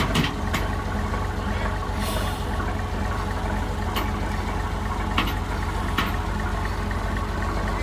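The British AEC AH-690 six-cylinder diesel of a 1957 Brill CD-52 bus running steadily at low revs through a straight pipe, with no muffler fitted, as the bus creeps up a trailer ramp. A few sharp clicks come through over it.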